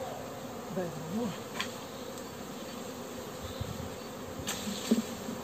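Honeybee swarm buzzing steadily around a catch box. Single bees flying close by add a hum that wavers up and down in pitch. There are a few short, light knocks, the sharpest near the end.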